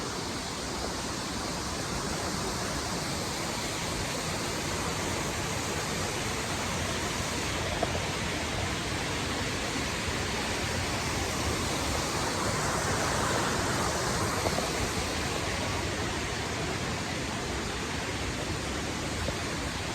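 Tall waterfall's steady rushing noise, even and unbroken, with a few faint clicks scattered through it.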